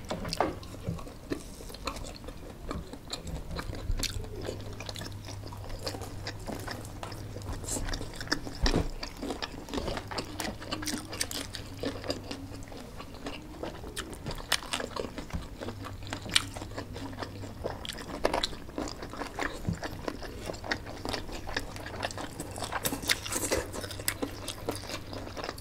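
Close-up eating sounds of two people eating noodles and dumplings with chopsticks: chewing, biting and wet mouth clicks and smacks, scattered unevenly. A faint low hum comes and goes underneath.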